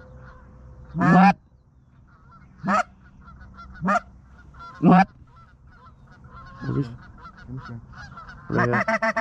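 Canada geese honking: five loud single honks a second or two apart, then a fast run of short clucking honks near the end, over fainter honking from more geese in the background.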